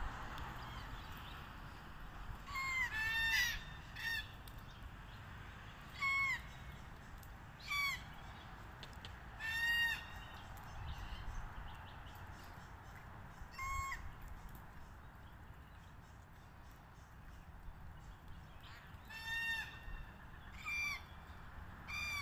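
Red-tailed black cockatoo calls: a dozen or so short, rasping, honk-like calls at irregular intervals, some in quick pairs, with a long pause in the middle.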